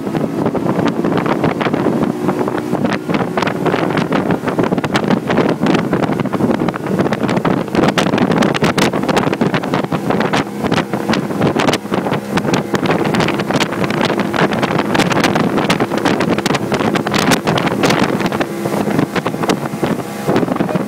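Johnson 150 outboard motor running at speed under way, a steady engine note under the rush and splash of the wake, with frequent gusts of wind buffeting the microphone.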